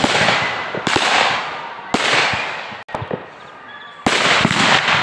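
Fireworks display going off: dense crackling and popping with many sharp bangs, fresh bursts starting about once a second. It thins out briefly about three seconds in, then a new loud burst starts about four seconds in.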